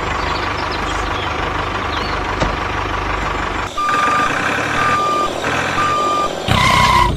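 A truck engine running steadily with a reversing alarm beeping three times, about a second apart, in the second half. A louder, longer tone sounds just before the end.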